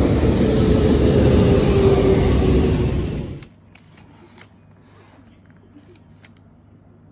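Loud rushing street noise, like traffic passing close, that cuts off sharply a little over three seconds in. After it, faint scattered clicks and rustles of a cardboard cake box being handled.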